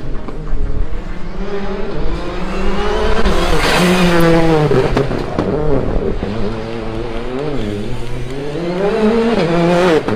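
Citroën C3 Rally2 rally car's engine revving hard as it drives through the stage, its pitch climbing and dropping again and again through gear changes and lifts. It is loudest about four seconds in as it passes closest, and revs up again near the end.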